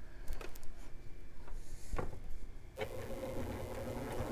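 Domestic sewing machine starting up nearly three seconds in and running steadily, taking its first few stitches through a quilt sandwich; a couple of faint clicks come before it.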